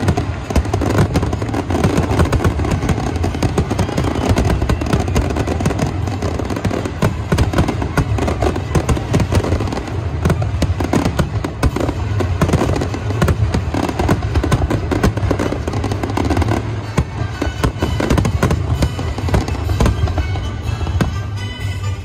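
Aerial fireworks barrage: shell bursts and crackles follow one another in rapid, continuous succession, thinning a little near the end.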